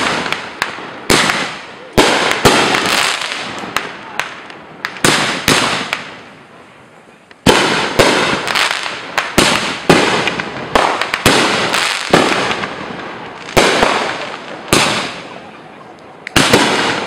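Aerial fireworks bursting overhead: a rapid run of loud bangs, each trailing off, with a short lull about six seconds in before the barrage starts again.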